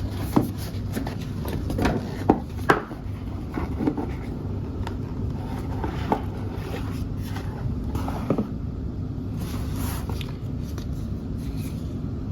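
Packaging of a doorbell kit being handled during unboxing: a few short knocks and scrapes, the sharpest in the first three seconds, over a steady low background rumble.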